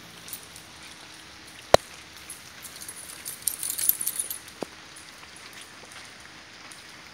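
Rain pattering steadily, with one sharp tap almost two seconds in. A burst of high metallic jingling comes about three to four and a half seconds in.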